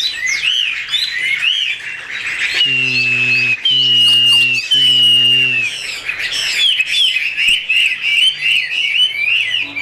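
Several Chinese hwamei (họa mi) singing over one another in fast chirps and warbled phrases, with three long level whistled notes in the middle.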